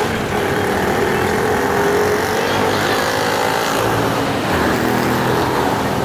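Heavy, slow road traffic: a coach's engine and many motorcycle engines running as they crawl past, a steady drone that drifts slightly lower in pitch over the first few seconds.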